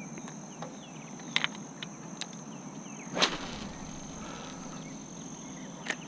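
A fishing rod whipped through the air in a cast with one sharp swish about three seconds in, and a few lighter ticks and swishes of the rod and line around it.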